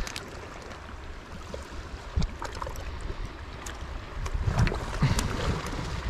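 Sea water washing steadily at the shore, with a few light clicks and taps scattered through it.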